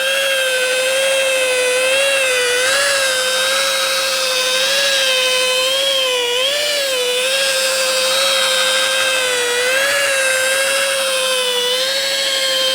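A handheld electric power tool with a polishing pad, most likely a drill, runs steadily with a whining motor whose pitch wavers slightly as it is worked over the car paint. It is compounding the clear coat to cut out bird-dropping etching.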